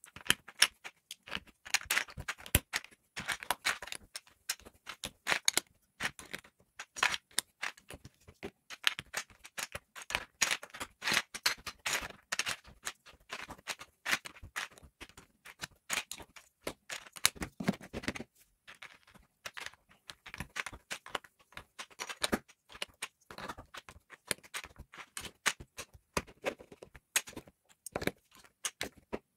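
Plastic LEGO bricks clicking and clattering as they are handled and pressed onto a baseplate: many sharp, irregular clicks in quick succession.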